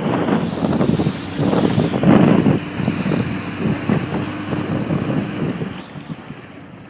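Wind buffeting the microphone on a moving motorboat, with the boat's engine and water underneath. It eases off about six seconds in.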